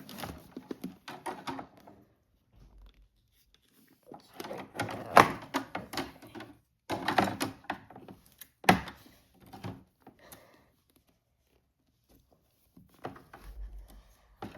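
Parts of a toy barn being handled and pushed together: clusters of knocks and clicks as pieces are set down and pressed into their slots, loudest in the middle, with a quiet pause near the end.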